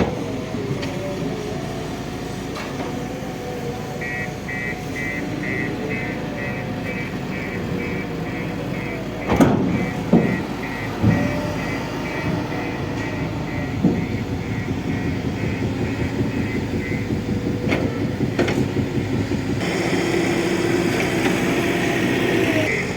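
Heavy construction machinery engines running, with a reversing alarm beeping about twice a second for much of the time and a few loud knocks near the middle.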